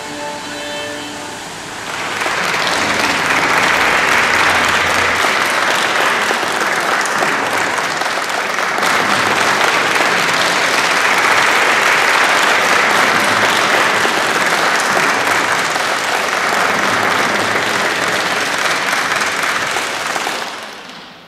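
Audience clapping steadily in applause, which fades out near the end. A few held musical notes are heard in the first two seconds, before the clapping starts.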